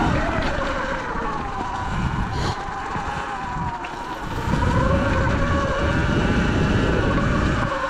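Surron Light Bee X electric dirt bike's motor whining under way in sport mode, its pitch dipping and then climbing with speed over a low rumble. It gets louder about halfway through as the bike speeds up.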